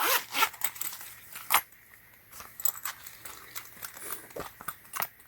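Irregular sharp clicks and crinkling rustles from handling the parts and packaging of a lock pick practice set, loudest at the start and about a second and a half in.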